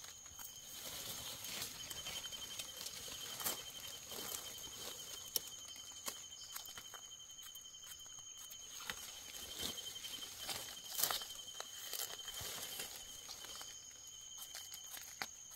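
Small knife scraping soil off the stem of a freshly dug, unopened Amanita (ra-ngok) mushroom: a run of soft, uneven scrapes and a few sharper clicks. A steady high-pitched drone runs underneath.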